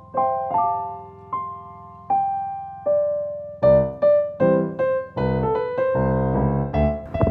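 Background piano music: sparse single notes that ring and fade, then about halfway through fuller chords with a bass line come in and the rhythm gets steadier.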